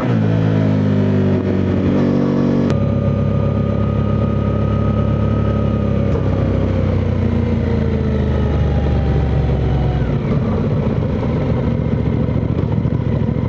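Suzuki V-Strom 800DE's parallel-twin engine pulling the bike along. Its note steps down twice in the first three seconds as gears change, then holds and slowly drops as the bike eases off.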